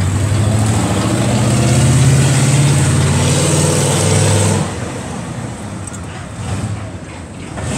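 Motorcycle engine running loudly, its pitch rising a little over the first few seconds, then dropping away abruptly about four and a half seconds in, leaving quieter street noise.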